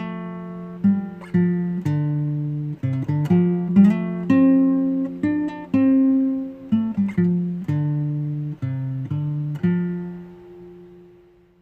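Acoustic guitar picked solo, a run of single notes and chords that each ring and die away, the last one fading out near the end.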